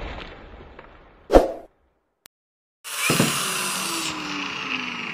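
A single whoosh-and-hit editing effect about a second in, followed by a moment of dead silence. Just before halfway the footage's own sound cuts in as a bright hiss, with a faint low hum that slowly falls in pitch.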